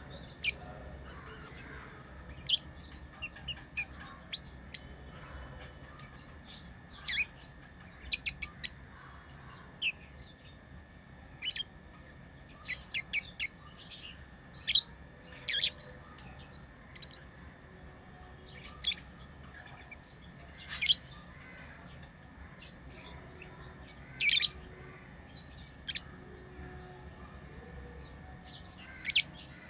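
Pet lovebirds chirping: short, sharp, high-pitched calls at irregular intervals, some in quick runs of three or four.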